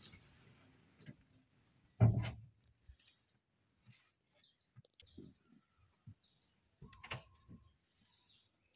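Quiet dry forest with a few faint, high, short bird chirps scattered through. A single loud thump about two seconds in is the loudest sound.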